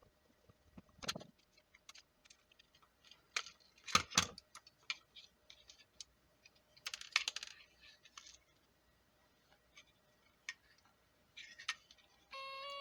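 Scattered small clicks, taps and rattles of plastic parts and screws being handled as a cheap plastic LED flashlight is taken apart with a screwdriver. Louder knocks come about one, four and seven seconds in.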